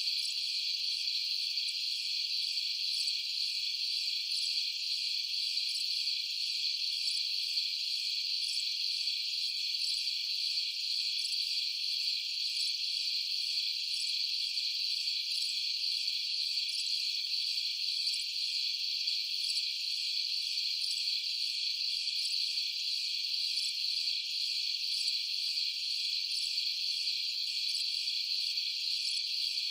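A dense, steady chorus of night insects trilling without a break, high-pitched, with a faint fast pulsing above the main trill.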